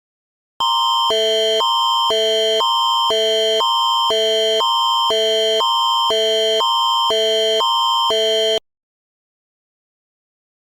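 Canadian Alerting Attention Signal (the Alert Ready emergency alert tone): two chords alternate every half second for about eight seconds over a steady high tone. It announces an emergency alert broadcast.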